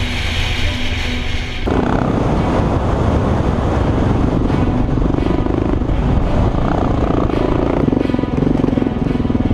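Background music that cuts off abruptly under two seconds in, replaced by a dual-sport motorcycle's engine heard from the bike itself, running under throttle over a dirt track. Its pulsing grows stronger near the end.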